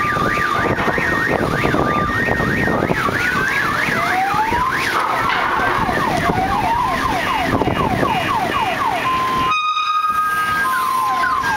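Electronic warning sirens in several overlapping patterns: a steady high-low two-tone, fast up-and-down yelps and slower rising wails, over a constant rumble of engines.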